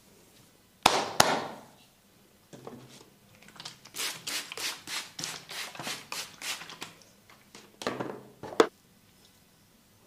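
Hands massaging oiled skin: two sharp hits about a second in, then a run of quick rubbing strokes, about three a second, and two more sharp hits near the end.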